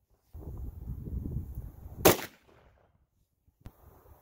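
A single rifle shot about two seconds in from a budget AR-15 firing .223 steel-case Tula ammunition, with a short echo after it. It is preceded by a low rumbling noise, and a faint click follows later.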